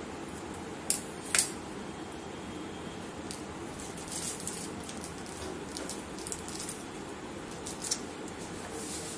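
Scissors snipping the tip off a plastic piping bag, two sharp snips about a second in. Then the plastic bag crinkles and rustles as it is handled, with another small click near the end.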